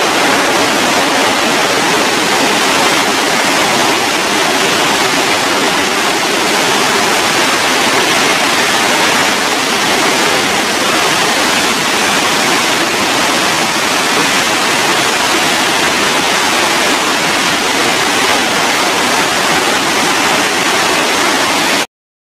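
Water released through a concrete dam's gates, a loud, steady rush of falling water that cuts off suddenly near the end.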